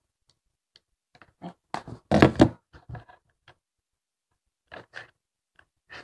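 Handling noise as a USB cable and adapter are fitted to phones: scattered light plastic clicks and rustles, with a louder rustle and knock about two seconds in.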